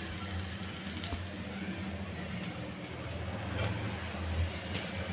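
Faint clicks and light taps as stuffed capsicums are picked up by hand from a nonstick pan and set on a ceramic plate, over a steady low hum.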